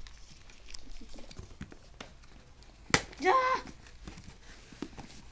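Faint scratching and small clicks of fingers working at the tape and flaps of a cardboard mailing box. About three seconds in, a sharp click is followed by a brief vocal sound from a person.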